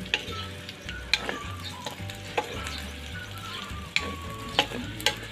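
Pork belly pieces, garlic and onion sizzling in rendered pork fat in a metal wok, stirred with a metal spatula that scrapes and clinks against the pan about six times.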